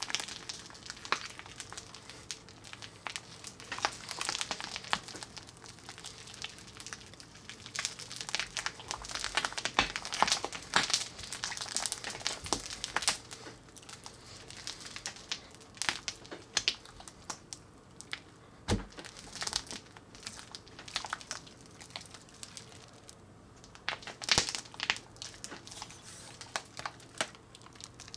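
Slime being squished and stretched by hand: a steady run of irregular sticky crackles, clicks and pops.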